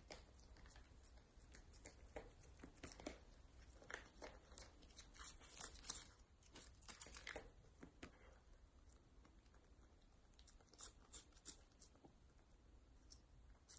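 Two cats licking and smacking at squeeze-tube cat treats: a quick run of faint wet clicks, busiest in the first half and thinning out later.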